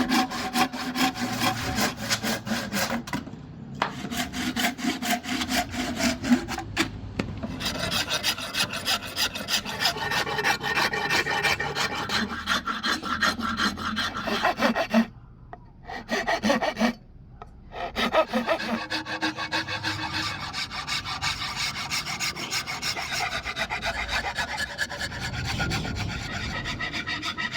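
Rapid, repeated strokes of a hand file working wood, stopping briefly a few times.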